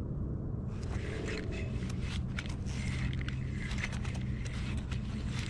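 Spinning reel being cranked to bring in line, with irregular short clicks and handling noise over a steady low rumble.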